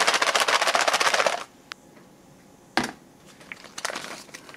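MRE cappuccino drink pouch of foil-lined plastic crinkling rapidly as it is crumpled and squeezed in the hands, stopping about a second and a half in. A single sharp knock comes near three seconds, followed by softer, sparser crinkles.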